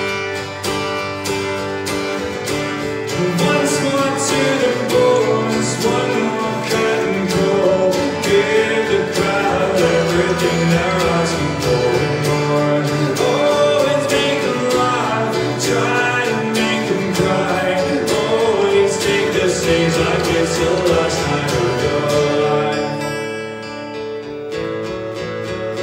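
Acoustic guitar strummed and picked in a steady rhythm during a live solo folk song, getting somewhat quieter near the end.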